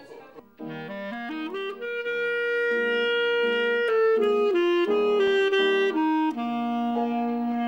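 Clarinet playing a melody of held notes over piano accompaniment, starting about half a second in.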